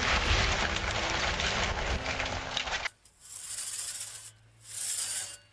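A loud, dense, rumbling noise cuts off suddenly about three seconds in. A hand saw then rasps through wood in slow, even strokes, about one a second.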